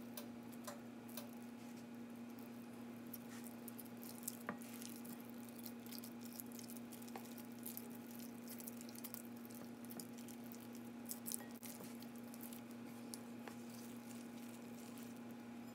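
Soft, faint squishing and light ticking of hands breaking up soft baked sweet potato flesh into a glass bowl and picking at the peeled skins, with a steady low hum underneath.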